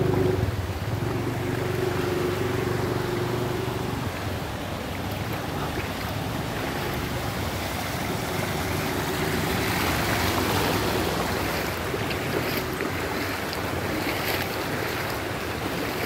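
Floodwater flowing and splashing along a flooded street, a steady rushing noise that swells around the middle. A steady engine hum runs under it for the first few seconds.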